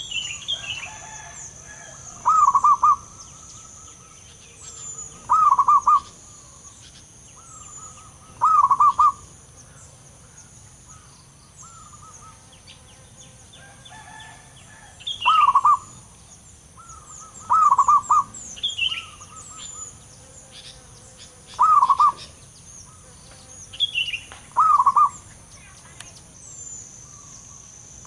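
Zebra dove singing its rolling, stuttering coo about eight times, each phrase under a second, a few seconds apart with a longer pause midway. Fainter high chirps and a steady high-pitched tone sound in between.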